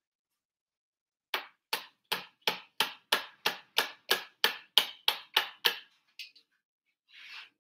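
Plastic kitchen strainer being tapped against the rim of a pot, a run of about fourteen sharp, even taps at about three a second, knocking the last of the egg mixture through the strainer. A couple of lighter taps and a short soft rustle follow near the end.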